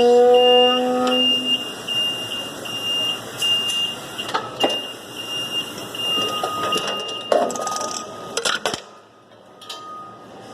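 Skyjack scissor lift: its motor hum stops about a second and a half in, while its warning alarm keeps up a regular high-pitched beeping. Metal clanks and knocks follow, and a second, lower steady tone sounds near the end.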